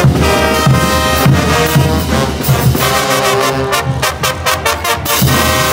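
Bolivian marching brass band playing: trumpets and trombones carry the tune over sousaphones, bass drums and cymbals keeping a steady beat. The drums drop out briefly about halfway through, then come back in.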